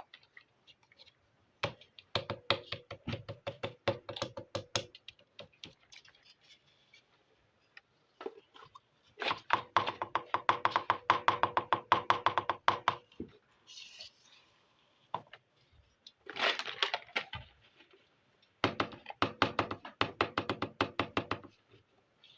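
Small plastic toy kitchen pieces being handled and unpacked, making rapid runs of tiny clicks and crackles in four bursts, with a couple of short hissy rustles between them.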